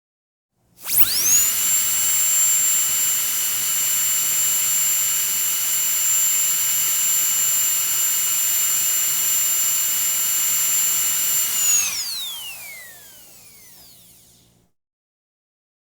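Dentist's drill starting almost a second in, quickly reaching a steady, high-pitched whine that it holds for about eleven seconds, then spinning down with a falling whine that fades out near the end.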